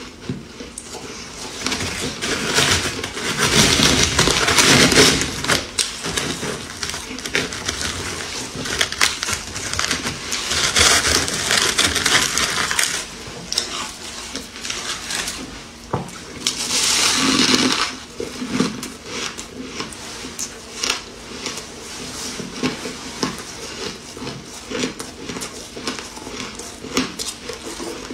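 Crunching and crackling of fine white shaved ice being scooped and squeezed into a packed ball by hand, with many small crisp clicks. There are three louder crunching stretches: a few seconds in, around the middle, and about two-thirds of the way through.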